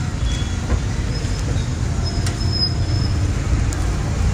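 Steady low rumble of street traffic and market background noise, with a few short, high, thin squeaks near the middle.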